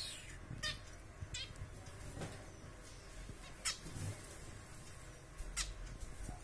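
Caged zebra finches giving short, sharp nasal calls, one every second or two, about five in all.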